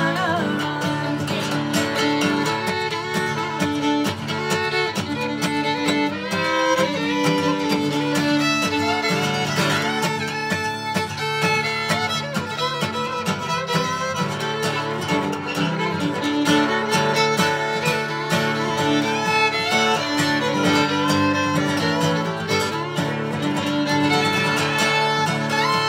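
Fiddle playing an instrumental break over a strummed acoustic guitar rhythm in a bluegrass song.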